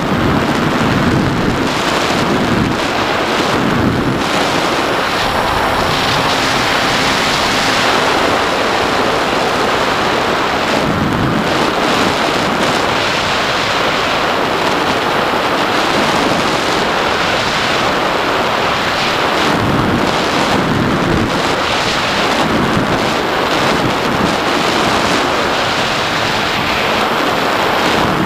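Steady, loud wind rush over an onboard camera's microphone on a low-flying RC model plane, with the plane's motor and propeller running underneath it.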